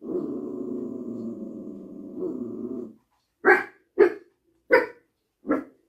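A small dog growls steadily for about three seconds, then gives four sharp barks.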